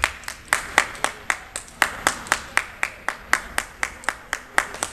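Rhythmic hand clapping by spectators: sharp, evenly spaced claps at about four a second, with a gym's echo.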